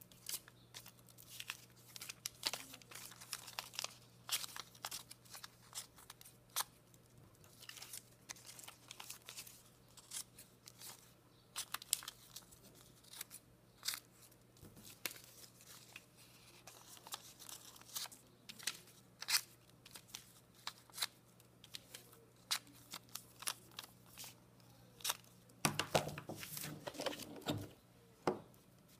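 Newsprint paper rustling and crinkling as small cut pieces are handled and pressed onto a collage, with many short sharp clicks and crackles. A louder stretch of paper rubbing and shuffling comes near the end.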